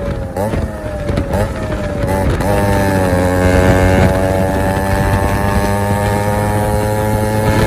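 Yamaha RX135 two-stroke single-cylinder exhaust: short, wavering throttle blips, then the engine held at a steady note from about two and a half seconds in.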